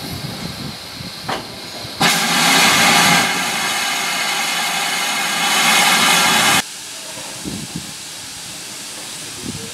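GWR Manor-class 4-6-0 steam locomotive 7820 Dinmore Manor letting off a loud hiss of steam. The hiss starts abruptly about two seconds in and cuts off suddenly about four and a half seconds later.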